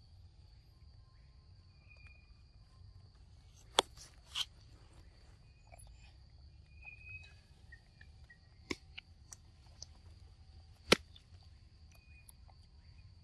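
Steady high-pitched insect drone with short bird chirps now and then, broken by a few sharp clicks or snaps, the loudest about four seconds in and near eleven seconds.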